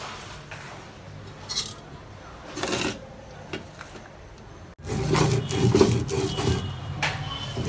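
Stone grinding slab and roller (shil-pata) rubbing and knocking as dried fish, chillies, onions and salt are mashed into bhorta. Faint strokes at first, then much louder, busier grinding from about five seconds in.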